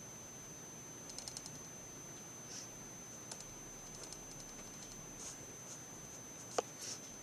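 Faint scattered clicks and taps of hands working kinetic sand: a quick run of small clicks about a second in, a few single ones after, and a sharper click near the end.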